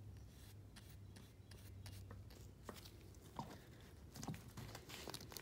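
Faint handling sounds: a brush being worked over the coated clay piece and then a few light clicks and knocks as it goes back into the small metal coating can, over a low steady hum.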